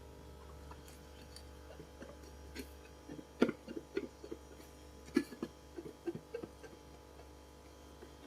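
Irregular light knocks and clinks of a plate against a bowl as a covered bowl of flour-dredged fish is handled, starting about three seconds in, over a steady low hum.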